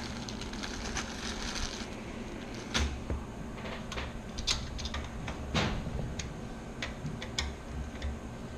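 Irregular clicks and knocks of hands handling parts inside a PC case while fitting a liquid cooler's radiator and fans, over a low steady hum.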